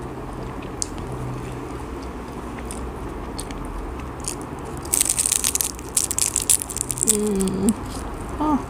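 Close-miked bite and chewing of a crispy fried banana spring roll (popia pisang): a few faint clicks, then a dense run of loud crunching crackles from about halfway through.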